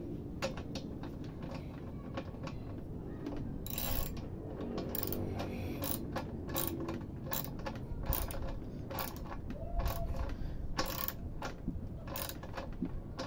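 Hand socket ratchet clicking in short irregular runs of back-strokes as it turns a bolt.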